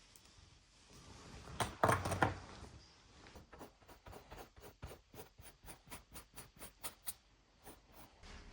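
A brief rustle about two seconds in, then quick, even strokes scratching on paper, about four a second, as a picture is painted.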